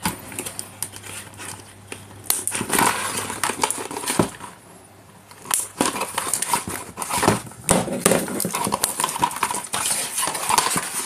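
Packaging being handled: cardboard box and plastic tray rustling and knocking, with the clicks of small side cutters snipping the paper ties that hold an action figure in place. There is a brief lull about four seconds in.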